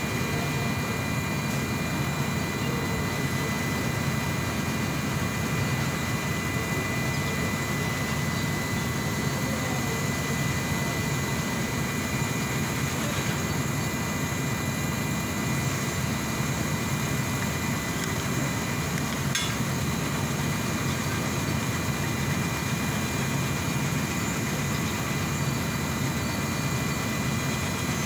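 Steady drone of an engine running at idle, with a faint constant high whine over it.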